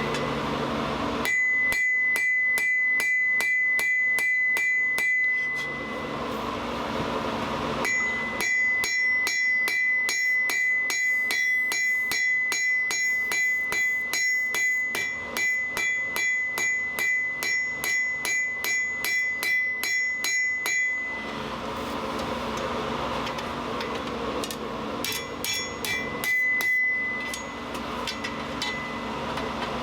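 Hammer blows on hot steel over an anvil in three runs of about two to three blows a second, with pauses between them. The anvil rings at one clear pitch through each run.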